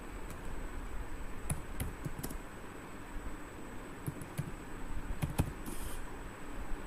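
Computer keyboard being typed on slowly: a handful of separate keystrokes at irregular intervals, correcting and extending a line of text.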